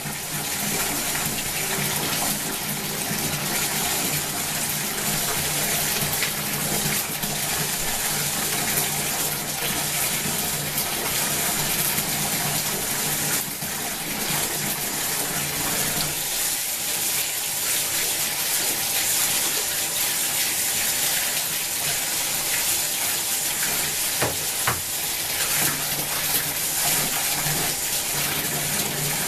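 Bath tap running into a filling bathtub: water pouring and splashing steadily into the tub.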